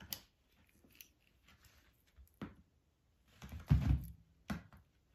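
A cat pouncing and scrabbling on a rug, batting at a feather toy: a few short scuffs and soft thumps, the loudest cluster about three and a half to four seconds in.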